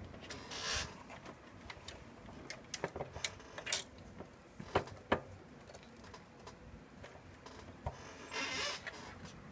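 Scattered light clicks and knocks with two short rustles, from hands working the wiring and plastic plug connectors inside an open Realistic SCT-29 cassette deck.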